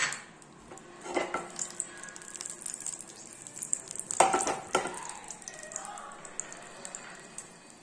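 Whole garam masala (cardamom pods and cinnamon) sizzling and crackling in hot mustard oil in a nonstick frying pan. A few louder knocks come about a second in and again around four seconds in.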